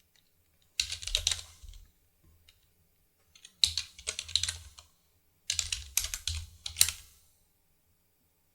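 Quick typing on a computer keyboard in three short bursts of about a second each, with pauses between.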